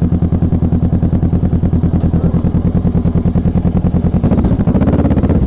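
Kawasaki Ninja motorcycle engine running at low road speed, its exhaust pulsing evenly, with the revs rising a little about four seconds in.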